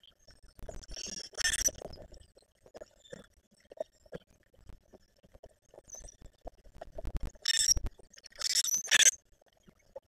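Birds busy at seed feeders: many light clicks and taps of beaks and feet on the feeders, with louder harsh bursts of bird noise about a second and a half in and twice more between about 7.5 and 9 seconds.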